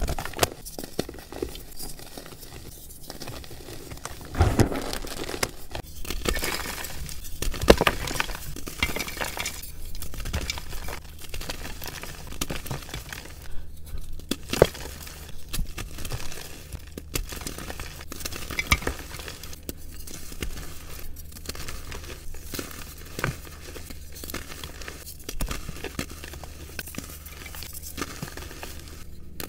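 Dyed, reformed gym chalk being crushed by hand: dry crunching and crumbling with irregular sharp snaps as hardened pieces break apart, busiest a few seconds in.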